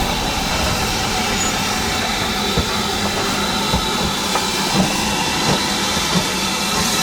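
Steam-hauled heritage train running on the track: a steady rumble, with the wheels clicking over the rail joints every half second to a second.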